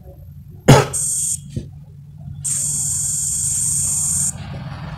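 A sharp click, then the CNC simulator's machine-motion sound: a high hiss that runs briefly, stops, and runs again for about two seconds while the simulated Sinumerik 808D lathe's axes travel to their reference points. A steady low hum runs underneath.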